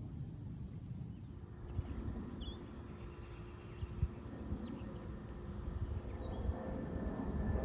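Several short, high bird chirps over a steady low outdoor rumble that grows louder near the end.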